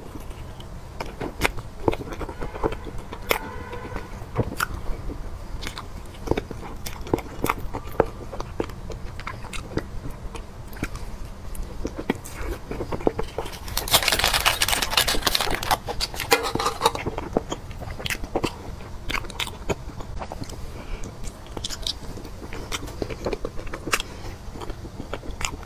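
Close-miked eating sounds: a person biting into and chewing soft snow-skin mochi (xuemeiniang) with cream filling, with many wet mouth clicks and smacks. About fourteen seconds in comes a louder burst of noise lasting about two seconds.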